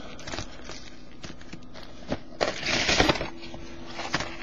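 Trading card packs in their foil wrappers handled by hand: light rustling and taps, with a brief crinkling about two and a half seconds in.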